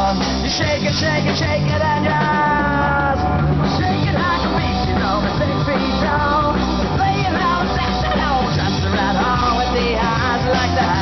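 Live rock band playing: drum kit, electric guitars and bass, with a voice singing over them.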